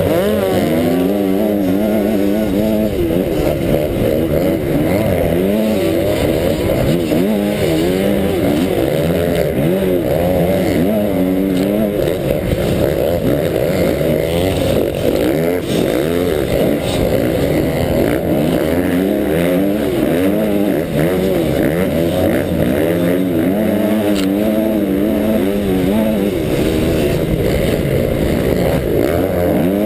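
Motocross bike engine under race load, revving up and dropping back over and over as the rider accelerates, shifts and backs off, heard from a helmet-mounted camera.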